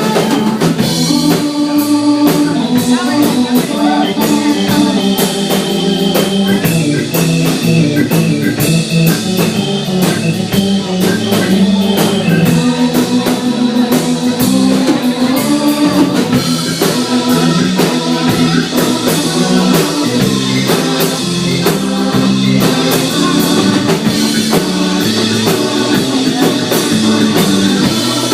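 Instrumental break of a rock song: a drum kit keeps a steady beat under guitar playing a melodic line.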